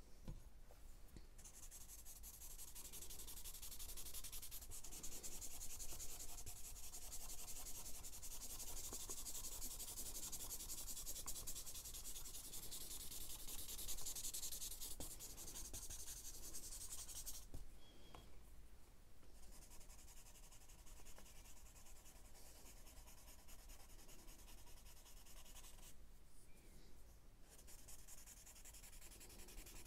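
A drawing tool shading charcoal on sketchbook paper: quick, scratchy back-and-forth strokes that run on almost continuously, with a short pause a little past halfway and another near the end.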